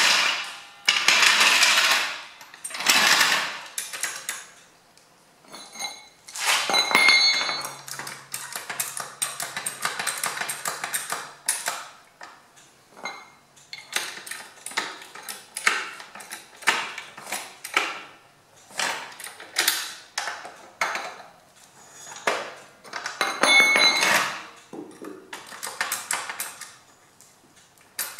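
Steel hydraulic trolley jack being dragged across a concrete floor and set under a small tractor's front end: scraping, metal clanks and clinks, and runs of quick clicks as the jack is worked.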